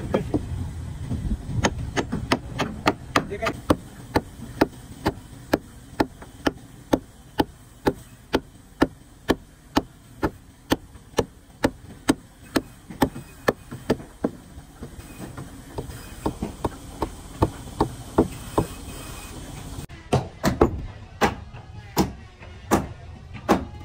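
Hammer striking repeatedly in a steady rhythm, about two blows a second.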